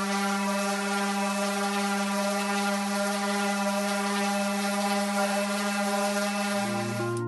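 DeWalt random orbital sander running steadily on a wooden cutting board: a steady whine over the hiss of sanding. Near the end, music comes in and the sander stops.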